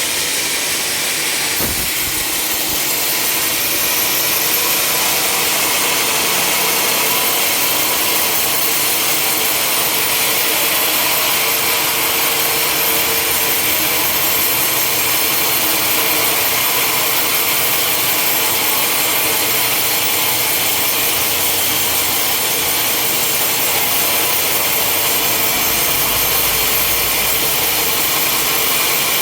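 Sawmill blade cutting through a log, a steady dense hiss of sawing that grows slightly louder a few seconds in. There is a single sharp click about a second and a half in.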